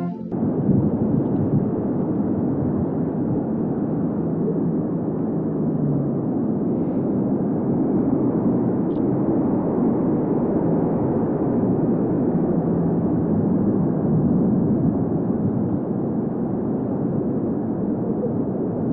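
A steady, dense, muffled rumbling noise with no clear pitch, cutting in abruptly as choir singing stops.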